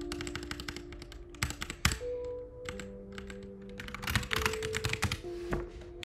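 Computer keyboard being typed on in quick runs of keystrokes, with soft lofi music held underneath. Everything cuts off suddenly at the very end.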